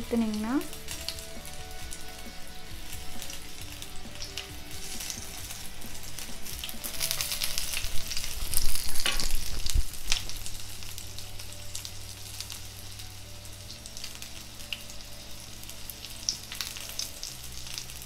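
Chicken seekh kebabs sizzling in oil in a frying pan, a steady crackling hiss. It grows louder between about seven and ten seconds in, with a sharp click near the nine-second mark.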